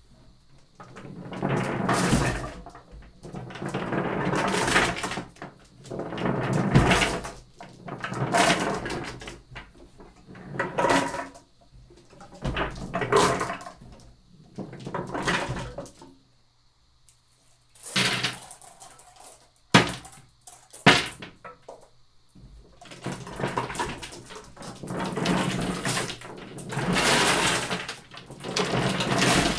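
Dozens of marbles rolling across paint-covered paper in a wooden-framed tray, rumbling in repeated swells of a second or two as the tray is tilted one way and then the other. A little past the middle, two sharp knocks as the marbles hit the wooden frame.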